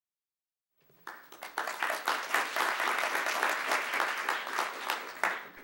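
Audience applauding. The clapping starts about a second in and fades out near the end.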